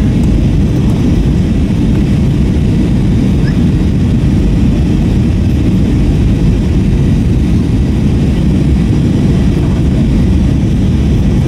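Steady cabin noise inside an Airbus A321-232 airliner, heard from a rear window seat: a loud, even low rumble of its IAE V2500 engines and the airflow, with no change through the stretch.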